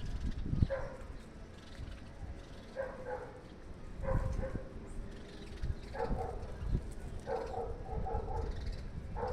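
A dog barking repeatedly in short calls every second or two, with a quicker run of barks near the end, over a low rumble.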